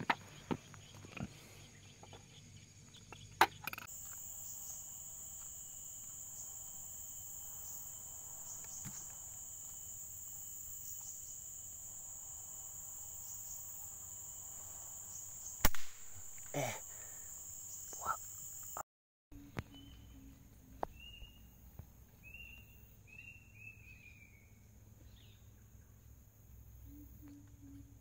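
Insects drone steadily at a high pitch. Partway through, a single sharp air-rifle shot cracks out, followed by two duller thumps. After a break, a bird gives a few short falling whistles.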